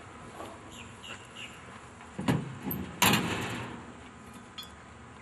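Pickup truck's tailgate being swung up and slammed shut: a clank about two seconds in, then a louder metal bang about three seconds in that rings briefly.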